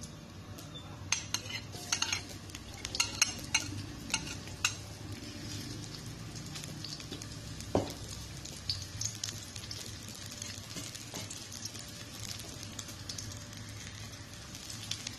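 Shallots frying in hot oil in an aluminium wok, with a steady sizzle. In the first few seconds a metal spatula clinks and scrapes against the plate and the wok as the shallots are pushed in.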